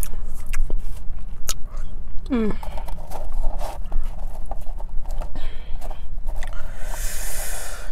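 Close-miked chewing of french fries dipped in cheese sauce: a run of wet mouth clicks and smacks, with a short falling hum about two and a half seconds in and a breath near the end.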